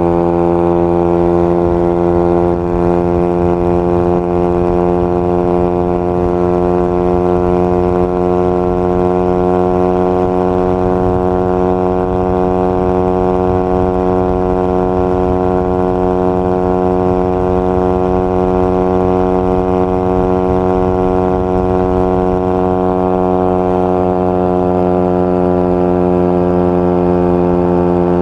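Suzuki GSX-R150's single-cylinder engine running at steady revs through an aftermarket exhaust, a loud, even exhaust note whose pitch drifts slightly up and back down.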